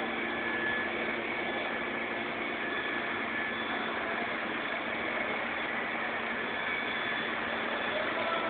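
Forklift engine running steadily at idle, heard as a constant hum under an even hiss.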